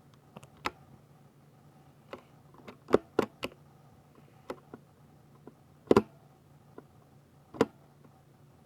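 Scattered single keystrokes on a Ducky 60% mechanical keyboard with silver switches: about a dozen separate clacks, irregularly spaced, with a quick pair about six seconds in among the loudest.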